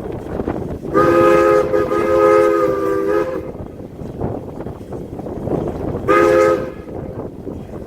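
Steam whistle of 2-6-0 steam locomotive #89 sounding a chord of several notes: one long blast beginning about a second in and lasting about two and a half seconds, then a short blast about six seconds in. Wind and train noise fill the gaps.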